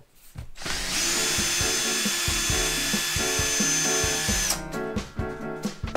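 Cordless drill running steadily on a screw in the aluminum trim along a door edge, with a high whine, for about four seconds, then stopping abruptly. Background music plays throughout.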